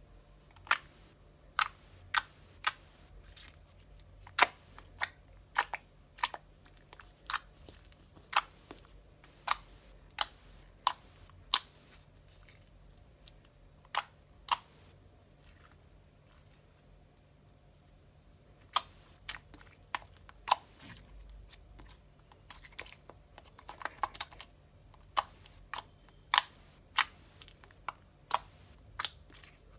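Thick, borax-activated slime being squeezed and worked by hand, giving sharp, irregular clicks and pops, roughly one or two a second, with a pause of a few seconds midway.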